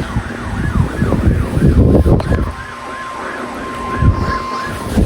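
An emergency alert siren yelping in fast rising-and-falling sweeps, about four a second, over low rumbling noise. About two seconds in a steady high tone joins it and grows louder near the end, matching the 1050 Hz weather-radio warning tone that comes before an alert.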